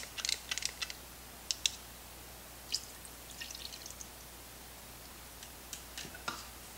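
A few faint clicks of a utensil stirring cornstarch-and-water slurry in a small plastic cup, then the slurry poured into the Instant Pot's stainless inner pot over the chicken and liquid.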